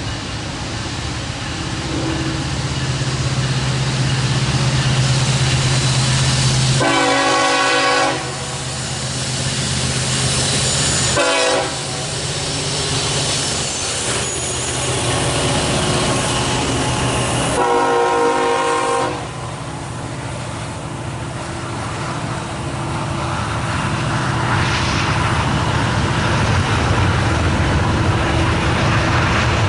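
Locomotive horn sounding three blasts, long, short, then long, over the loud steady running of a passing train's diesel engine. The train rolls on past afterwards.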